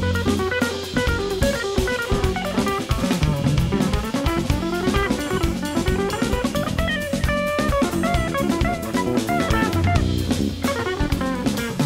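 Live band music: a hollow-body electric guitar plays quick, winding melodic lines over busy drum-kit playing and bass.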